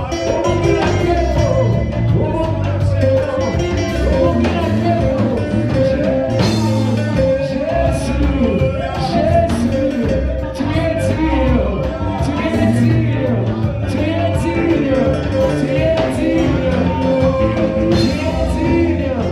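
Live worship band music with a steady beat, bass and melodic lines running throughout.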